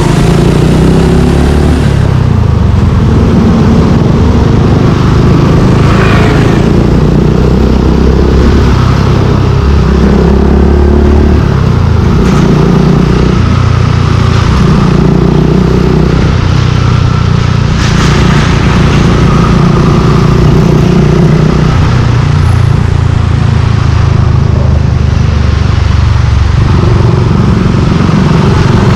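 Suzuki Gixxer 155's single-cylinder four-stroke engine through an aftermarket exhaust, the motorcycle under way with the engine note rising and falling every few seconds as the throttle opens and closes.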